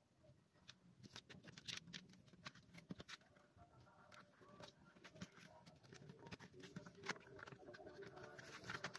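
Faint scattered clicks, taps and rustles of a paper CD booklet and a plastic jewel case being handled as the booklet is slid back into the case.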